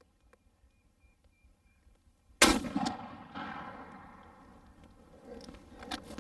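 A single shot from a 12-gauge Remington 870 pump shotgun firing a tungsten super shot (TSS) load, about two and a half seconds in. The report fades away over the following few seconds.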